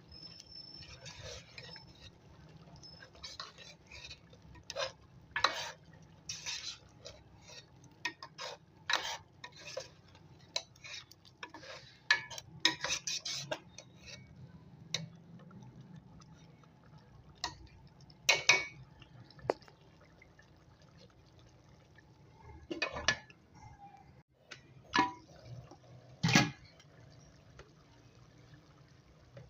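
Metal kitchen utensils clinking and scraping against cooking pots and dishes in irregular knocks, over a low steady hum.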